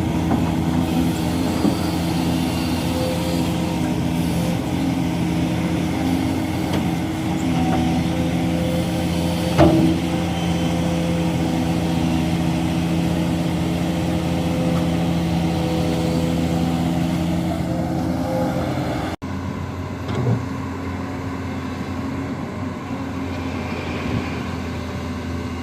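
Excavator diesel engine running steadily, with one sharp knock about ten seconds in. The sound cuts off suddenly about two-thirds of the way through, and a quieter engine runs on.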